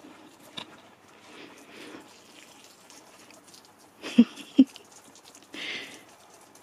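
Faint rustling of garden plants as a dog on a lead moves among them, with two short dull thumps close together a little after four seconds in and a brief hiss near the end.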